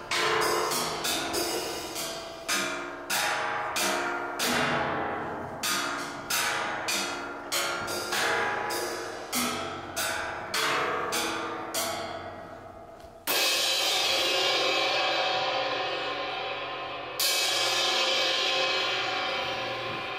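Live percussion: a run of struck hits, each ringing and dying away, then two loud cymbal crashes a little past halfway and about four seconds later, each left to ring on.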